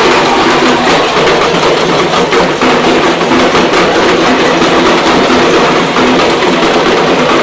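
An ensemble of parai, Tamil frame drums, beaten with two sticks in a loud, dense, continuous rhythm.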